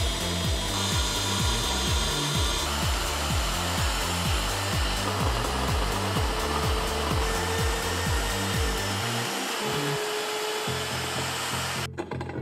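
Electric drill boring into a steel bracket, a cordless drill and then a magnetic-base drill press, under background music with a steady bass line. The drilling stops near the end while the music carries on.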